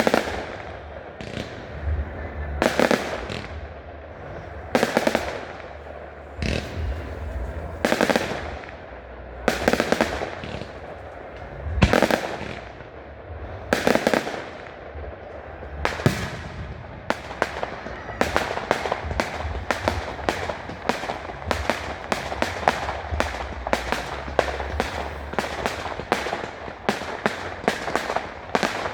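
Fireworks display: loud bangs about every one to two seconds, giving way about halfway through to a rapid, dense run of crackling bursts.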